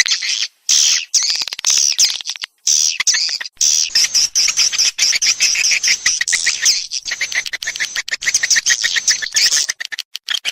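Swiftlet lure call: a dense, rapid twittering chatter of high chirps, broken by a few brief pauses. It is the recorded swiftlet call played to draw edible-nest swiftlets into bird's-nest houses.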